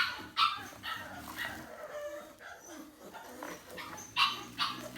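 American Bully puppies yipping and barking in short calls, the loudest two close together about four seconds in.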